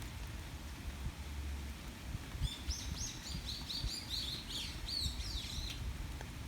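A small songbird sings a quick run of high, repeated chirping notes, about four a second, starting about two and a half seconds in and lasting some three seconds, over steady rain.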